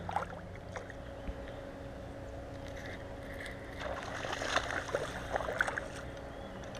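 A hooked largemouth bass splashing and thrashing at the pond's surface as it is reeled toward the bank, in a cluster of splashes about four seconds in. A few light knocks come near the start.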